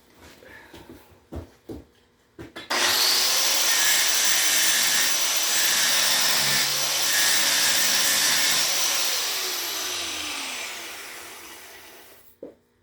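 Grinder switched on and grinding, a steady hiss that starts suddenly a few seconds in: a TIG tungsten electrode, contaminated by dipping it in the weld, being ground clean and resharpened. Near the end the motor winds down, fading with falling pitch, after a few handling knocks at the start.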